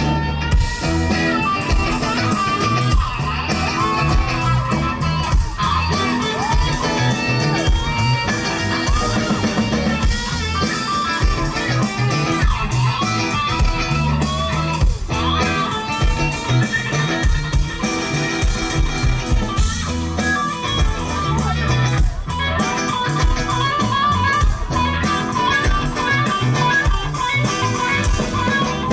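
Rock band playing live without vocals: electric guitar lines over bass guitar and drums.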